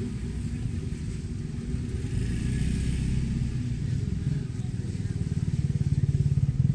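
A motor vehicle engine running close by, with a rapid low pulsing that grows louder over the last two seconds.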